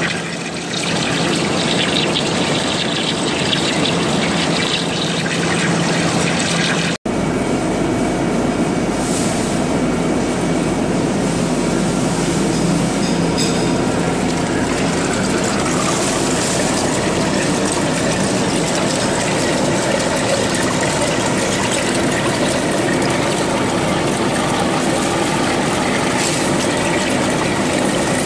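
Large lathe turning a long steel bar while a trepanning tool cuts a 10-inch bore, a steady machine-and-cutting noise mixed with coolant water pouring out of the bore. The sound drops out for an instant about seven seconds in, then carries on unchanged.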